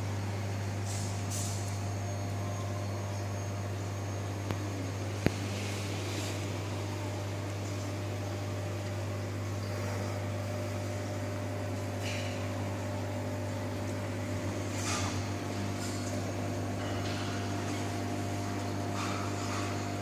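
Steady low hum of aquarium equipment such as an air pump running the bubble columns, with a few faint hissing splashes and one sharp click about five seconds in.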